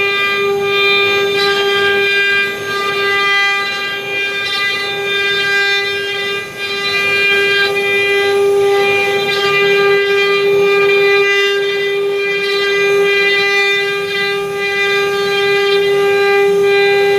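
CNC wood-carving router's spindle running with a steady, unchanging whine, with the rough noise of the bit cutting wood underneath it.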